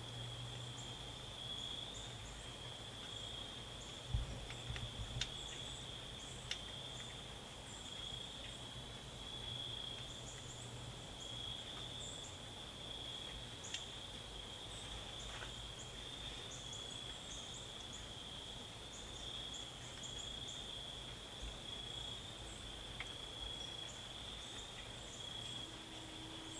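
Crickets chirring steadily and continuously, with faint high bird chips scattered throughout and a few light taps about four seconds in.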